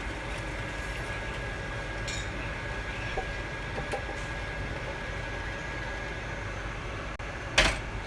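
Steady mechanical hum with a low drone and a thin high whine, broken by a few small ticks and one sharp clack near the end.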